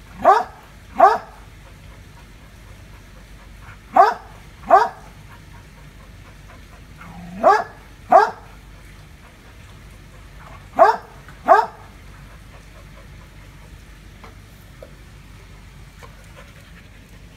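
A dog barking at a monitor lizard: eight short barks in pairs, each pair about three seconds apart, then the barking stops about twelve seconds in.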